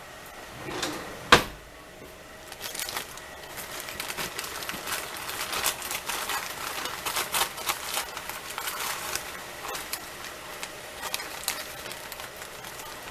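A sharp knock about a second in, then a long run of quick, light clicks as a spoon works sugar into sauce in a bowl.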